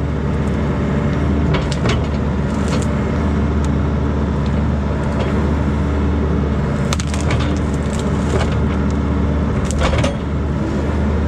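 Bobcat mini excavator's diesel engine running hard under load at full power while its boom pushes on a juniper tree that is not yet giving way. Several sharp cracks and snaps of wood are spread through it, a few seconds apart.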